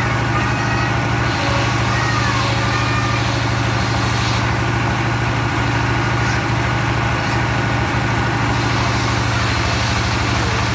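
Engine of a circular log sawmill running steadily at an even speed, with a constant low hum and no change in load.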